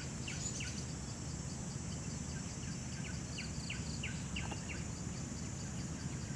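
Forest ambience: a steady high-pitched insect drone, with short, high chirps every half second or so and a low rumble underneath.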